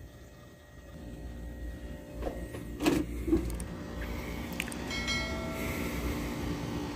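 A door handle and latch clicking twice as a door is unlatched and opened, over a steady low rumble that builds from about a second in. A short squeal comes about five seconds in.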